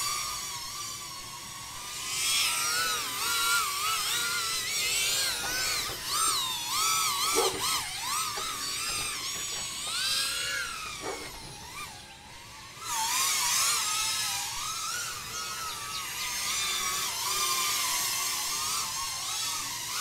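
Shendrones Squirt cinewhoop quadcopter in flight, its brushless motors and ducted props whining, the pitch rising and falling constantly with the throttle. The whine drops away briefly about twelve seconds in, then comes back as the throttle is picked up again.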